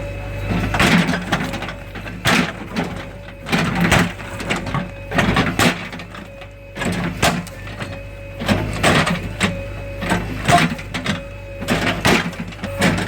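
JCB 3DX backhoe loader's diesel engine running steadily with a whine above it, while repeated knocks and crashes come every second or so as the machine breaks down masonry.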